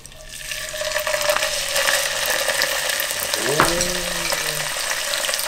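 A whole salted fish fillet deep-frying in hot oil: a steady sizzle with fine crackling, which swells over the first second or so as the fish settles into the oil.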